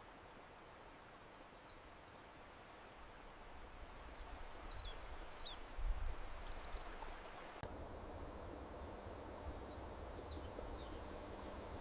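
Forest ambience: a steady background hiss with short, high bird chirps scattered through it, most of them in the middle. A low thump about six seconds in.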